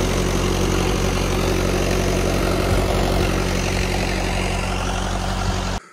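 An engine running at a steady, even speed, which stops abruptly near the end.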